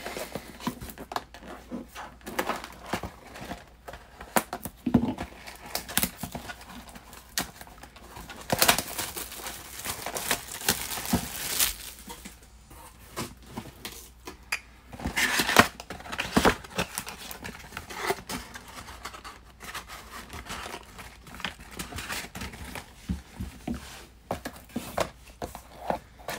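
Cellophane shrink wrap being torn and crinkled off a trading-card box, with scattered taps and scrapes of cardboard as the box is handled and its lid flap opened. The longest crinkling comes from about a third of the way in to nearly halfway, with another short burst a little later.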